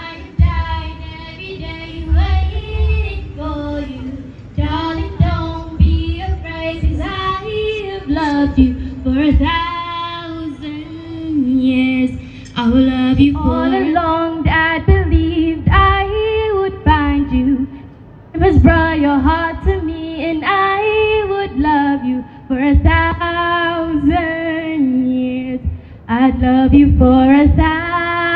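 A woman singing a melody into a microphone over amplified backing music with a low bass beat.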